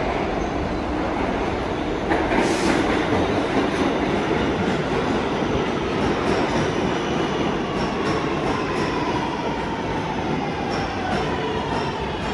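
New York City Subway train running through the station: steady wheel-and-rail rumble with a short sharp burst about two seconds in, then a motor whine that slowly falls in pitch through the second half.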